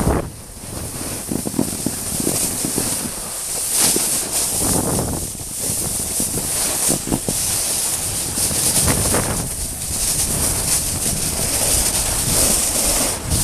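Wind buffeting the microphone of a wrist-worn camera during a snowboard run, with the snowboard scraping over the snow in waves that swell and fade every second or two.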